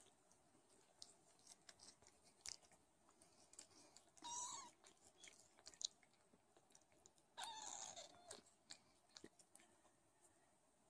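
Newborn Don Sphynx kittens crying twice with thin, high mews, the second longer and falling in pitch, over faint wet clicks and smacks of the mother cat licking them.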